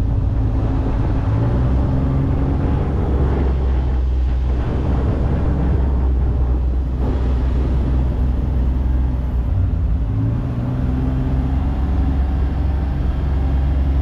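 Side-by-side UTV engine running steadily while driving, with open-cab wind and road noise; the engine note shifts in pitch a couple of times, about a second in and again near the end.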